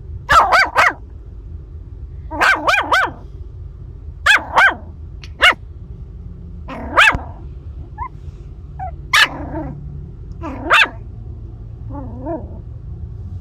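Seven-week-old Maltese–shih tzu mix puppy barking in short, high yaps, mostly in quick runs of two to four with pauses of a second or two between them; the last few near the end are softer.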